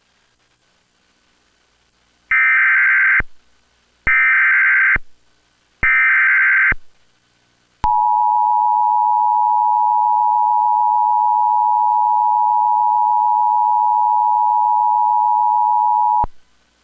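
Emergency Alert System SAME header: three bursts of warbling data tones, each just under a second long and about a second apart, announcing a new alert. About a second later comes the EAS two-tone attention signal, held steady for about eight and a half seconds before it cuts off.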